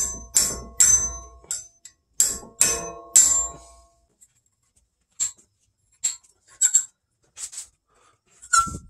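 A hammer strikes an Allen key seated in the brake rotor's 6 mm hex retaining screw, about six sharp metal-on-metal blows with a brief ring over the first three and a half seconds, to break the screw loose. Fainter clinks of the Allen key being turned by hand follow.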